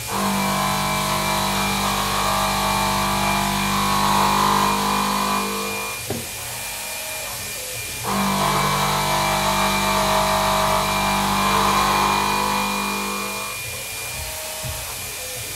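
Milling spindle running with a 3/4 inch shear hog face-milling aluminium round stock: two cutting passes, one from the start to about 6 s and one from about 8 s to near the end, each a loud, steady pitched hum. A steadier high whine from the spindle carries on in the quieter gaps while the cutter moves between passes.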